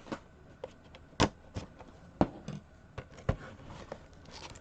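A few scattered sharp clicks and taps of small plastic figures and packaging being handled, the loudest about a second in.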